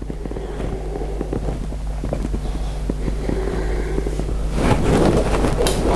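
Handling noise from a framed painting being held and turned: scattered small knocks, then rustling and rubbing that grows louder near the end, over a steady low hum.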